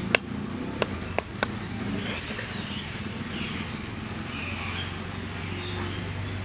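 Background ambience: a steady low hum with faint high chirps scattered through it, broken by four sharp clicks in the first second and a half.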